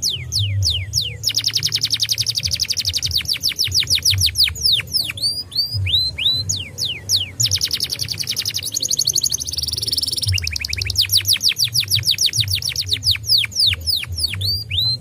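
Domestic canary singing a long, continuous song. Runs of very fast trills alternate with down-slurred whistled notes, and a harsh buzzy phrase comes about two-thirds of the way through.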